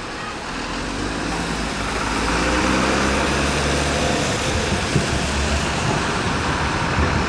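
Double-decker diesel bus pulling away and passing close by, its engine rumble growing louder over the first few seconds, over steady city traffic noise.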